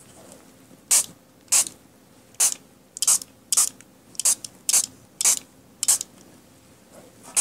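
Small fine-mist pump spray bottle spritzing a paper card: about nine short hissing sprays, roughly one every half second to second.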